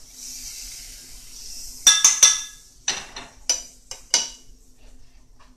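A metal utensil clinking and knocking against cookware while pancakes are being made. It is a quick cluster of ringing clinks about two seconds in, then several single knocks, after a soft hiss at the start.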